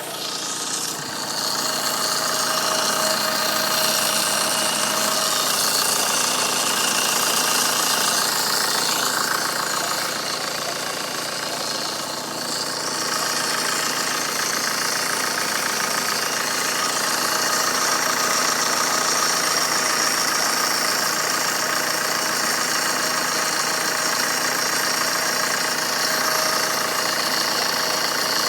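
Vauxhall Astra H 1.7 turbodiesel engine idling steadily, with a weird noise from around the turbo that the owner cannot identify.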